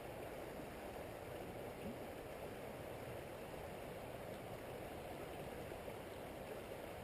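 Stream water running steadily over rocks, an even rushing wash.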